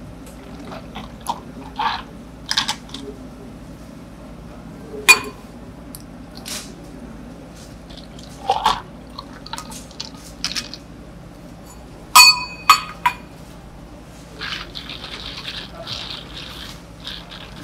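Tea poured from a stainless steel pitcher over ice cubes in plastic cups: liquid splashing onto the ice, with sharp knocks and clinks as the pitcher and cups are handled, the loudest about five seconds in and two ringing metallic clinks about twelve seconds in.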